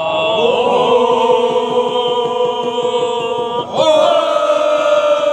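Several men chanting together in long held notes, a Timorese lian dadolin ritual chant. The held note breaks off about three and a half seconds in and the voices take up a new held note.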